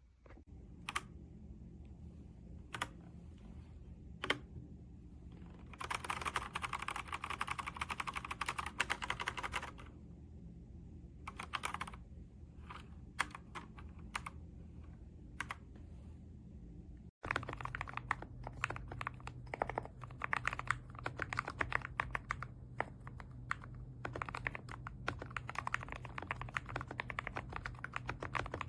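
Typing on a Redragon K689 mechanical keyboard with linear switches: a few single keystrokes, a burst of fast typing, scattered keystrokes, then, after a brief cut about seventeen seconds in, steady fast typing.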